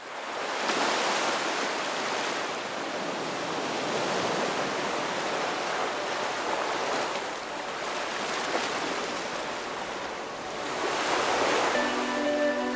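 Surf washing onto a beach, a wave breaking about every three to four seconds. Music begins near the end.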